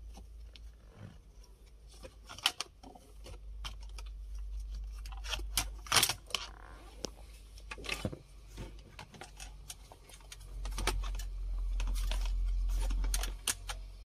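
Scattered small clicks and metallic taps of hands and tools working at a car's air-conditioning temperature control switch, with a sharper knock about six seconds in. A low rumble runs underneath and grows louder in the last few seconds.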